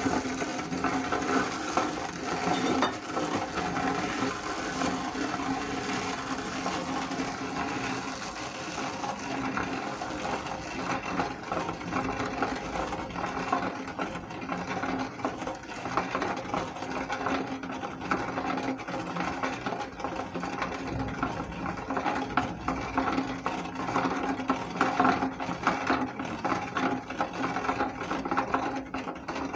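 Electric meat grinder motor running steadily with a constant hum, grinding noodles through the auger and plate with a dense crackle.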